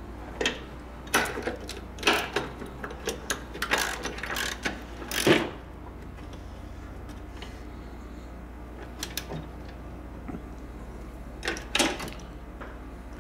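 Socket wrench on a long extension running down the upper control arm nuts on the strut tower: a quick run of metallic clicks and clinks over the first five seconds or so, then a few more clicks about nine seconds in and near the end.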